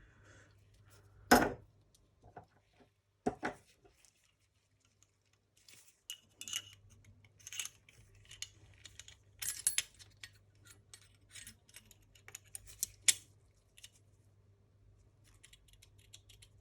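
Small metal engine parts and tools being handled on a hard surface: two sharp knocks in the first few seconds, then a run of light metallic clinks and taps.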